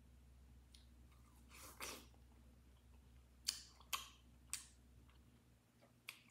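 Near silence with a faint hum, a short soft noise about a second and a half in, then four sharp clicks spread over the last three seconds.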